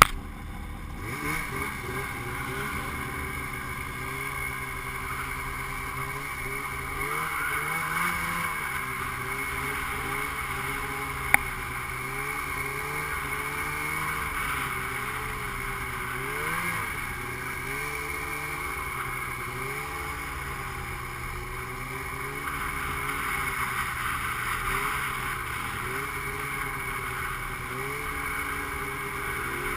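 Snowmobile engine running and being throttled, its pitch rising and falling as it pulls away. A single sharp knock cuts through about eleven seconds in.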